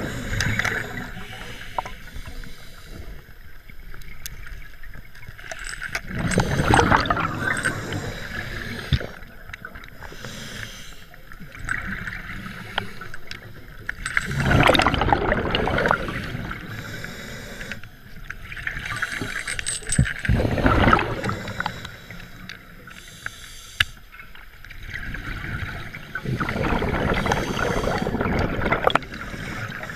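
Scuba diver breathing through a regulator underwater: a bubbling rush of exhaled air about every six to seven seconds, with quieter stretches and a few sharp clicks in between.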